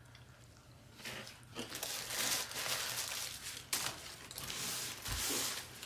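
Paper taco wrapper crinkling and tearing as it is handled and unwrapped, in bursts, with a low bump about five seconds in.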